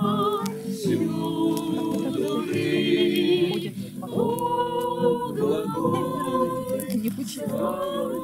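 A group of voices singing a hymn together, with held notes that waver and shift in pitch.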